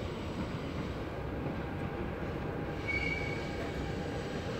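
RER commuter train braking as it pulls into the station: a steady low rumble, with a brief high brake squeal about three seconds in.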